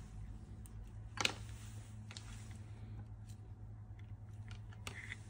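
Small clicks and light handling noises of multimeter probes and loose wire ends being moved about, the sharpest click about a second in, over a steady low hum.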